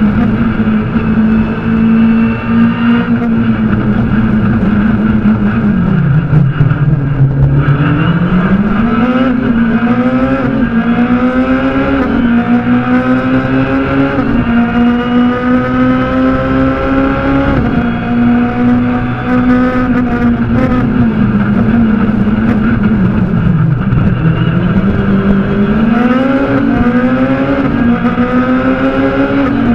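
Fiat Grande Punto S2000 rally car's 2.0-litre four-cylinder engine, heard from inside the cabin, running hard at high revs along a special stage. Twice, about six and twenty-four seconds in, the revs fall under braking and downshifts, then climb again in quick steps through the upshifts.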